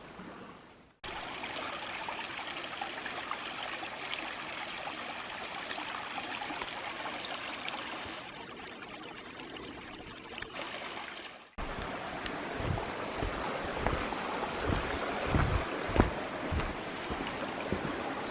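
Flowing water from a stream running steadily over rocks. About two-thirds of the way in it cuts to a different hiss with irregular low thumps.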